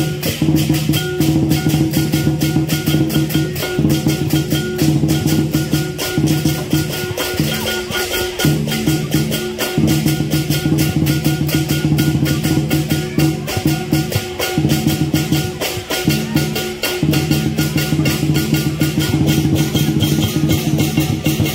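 Lion dance percussion: a big drum, crash cymbals and a gong played together in a fast, continuous beat.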